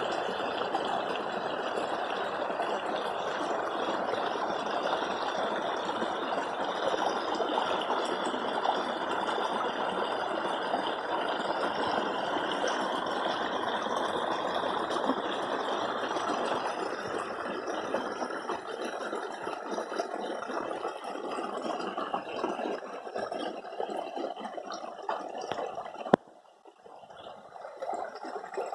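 Steady rush of flowing water that breaks off abruptly about 26 seconds in and comes back fainter.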